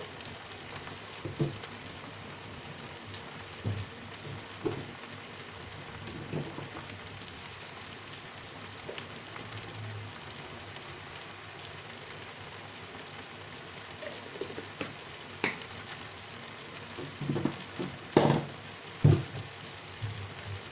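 Tomato and garden-egg stew frying steadily in a pan, with a few short knocks here and there and a cluster of them near the end.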